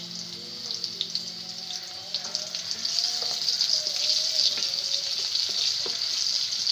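Sliced onions sizzling and crackling in hot oil in a steel pot while a wooden spoon stirs them. The sizzle grows louder about halfway through.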